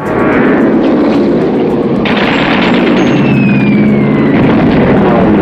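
Propeller warplane engines droning loudly and steadily as the planes fly over, in a film soundtrack. A falling whistle runs through the noise about three seconds in.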